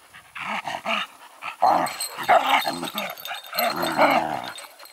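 Dogs play-fighting, growling in three rough bouts as they wrestle.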